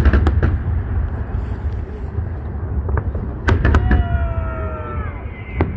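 Fireworks salute: sharp bangs, a cluster at the start, several more a little past three seconds in and one near the end, over a steady low rumble. A brief falling whistle-like tone sounds around four seconds in.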